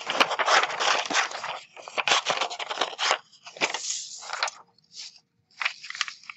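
A sheet of paper rustling and crackling as it is handled, then scissors cutting through it in several short snips over the last few seconds.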